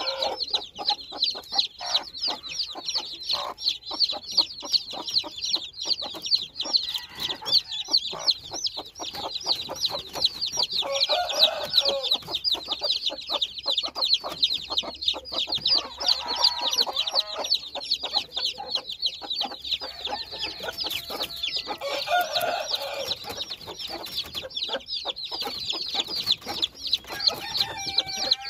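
Newly hatched chicks peeping nonstop, a dense chorus of short high chirps, while the mother hen gives low clucks every four or five seconds.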